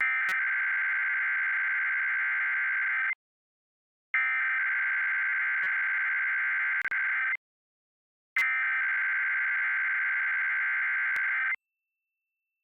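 Emergency Alert System SAME header: three bursts of rapid two-tone digital data, each about three seconds long with about a second of silence between them. The header opens an EAS Required Weekly Test.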